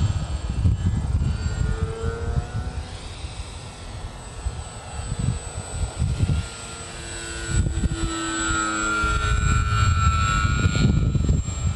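A small propeller airplane's engine drones in flight, its tones sliding up and down in pitch as it passes and growing louder in the second half. A gusty low rumble runs underneath.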